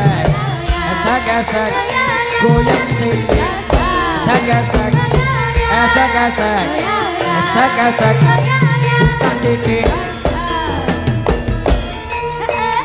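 Jaranan sentherewe music played live through a sound system: drumming with a melody line that bends up and down in pitch.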